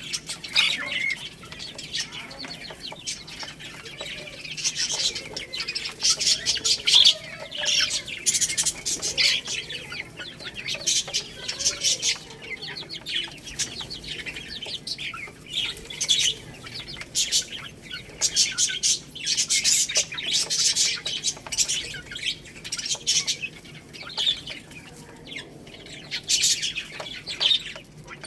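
Baby chicks peeping in quick, overlapping runs of short, high chirps.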